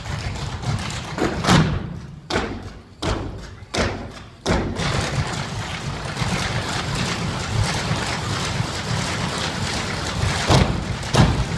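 A clogging team dancing a cappella: the clogging taps of many dancers' shoes on the stage floor. A few separate stomps with short pauses come two to four seconds in, then fast, dense tapping runs on, with louder stomps near the end.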